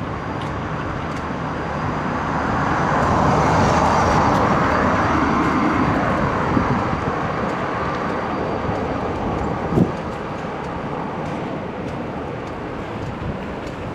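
Ocean surf: a steady wash of waves, swelling louder as a wave breaks about three to five seconds in, then easing back. A short knock sounds near ten seconds in.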